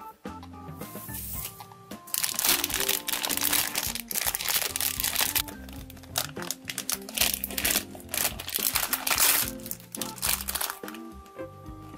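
Foil blind-box pouch crinkling loudly as it is handled and torn open, over cheerful background music; the crackling dies down in the last couple of seconds, leaving the music.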